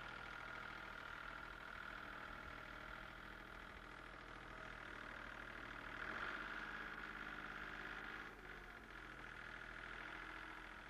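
An engine running steadily, getting louder about six seconds in and dropping back a little after eight seconds.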